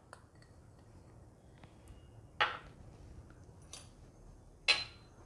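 Two short clinks about two seconds apart, with faint light ticks between them, as small glass ingredient bowls are handled around a steel cooker pot.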